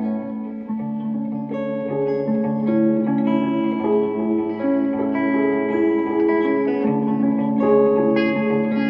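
Guitar played through effects pedals: slow, sustained notes and chords that change every second or so over a held low note, each note ringing on.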